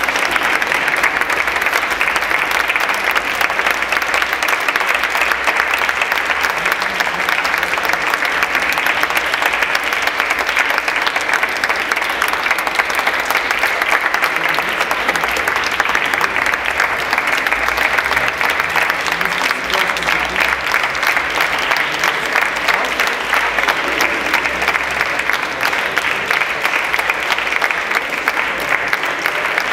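Audience applauding, a dense, steady clapping that doesn't let up.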